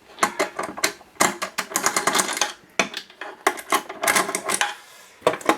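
Metal tools and parts clicking and clattering as screws are undone and modules are pulled out of a metal electronics case: irregular sharp clicks, some in quick runs.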